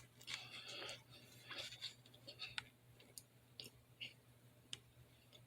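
Close-miked mouth sounds of eating cornstarch, quiet overall: a soft crackly chew in the first second, then scattered small mouth clicks.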